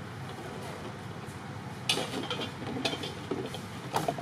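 Black plastic garbage bag crinkling and rustling as a long-tailed macaque pulls at it and rummages through it, in sharp irregular crackles starting about two seconds in.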